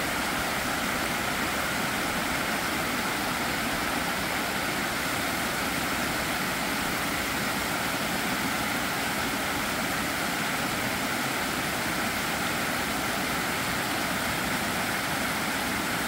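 Steady, even rush of water pouring over a reservoir's spillway as the dam overflows.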